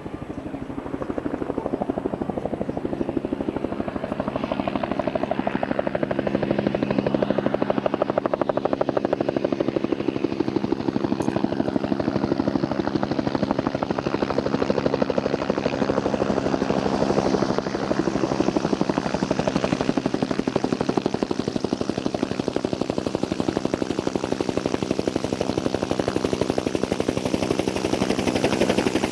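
Aircraft running close by: a steady engine hum with a fast, even throbbing beat, growing louder over the first few seconds.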